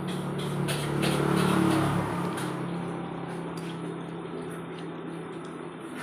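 A motor vehicle passing on the road, its engine hum swelling to a peak a second or two in and then fading away, with a few light clicks of spoons against bowls.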